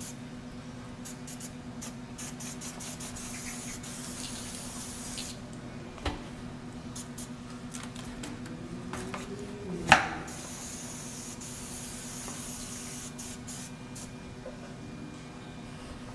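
Rust-Oleum aerosol spray paint can hissing in bursts of a few seconds each as army green paint is sprayed on. A light knock comes about a third of the way through, and a loud, sharp knock about two-thirds through.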